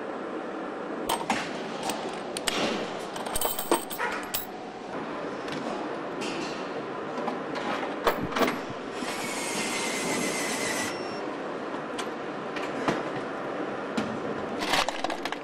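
Car assembly-line noise: a steady background din with scattered metallic clicks and knocks from work at the car body, and a hiss lasting about two seconds a little past the middle.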